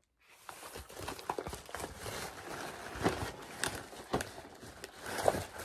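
Black plastic bubble mailer being handled and opened: continuous crinkling and rustling of the plastic, with a few sharp crackles.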